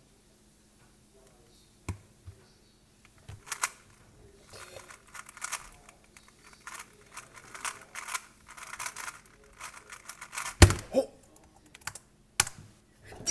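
A 3x3 speed cube turned at speed during a solve: a rapid run of plastic clicks and clacks lasting about seven seconds. It ends with a loud knock about ten and a half seconds in as the cube is put down and the timer is slapped, and a second knock about two seconds later.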